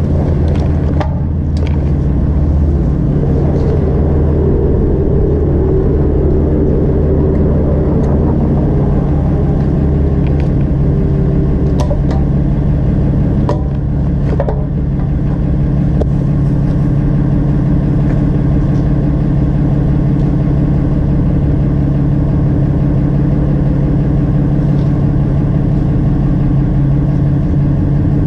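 Motorcycle engine idling steadily at standstill, with a few light clicks or knocks around the middle.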